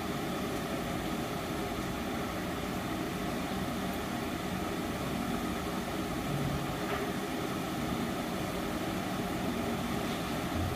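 A steady mechanical hum with an even whooshing rush of noise and faint steady tones.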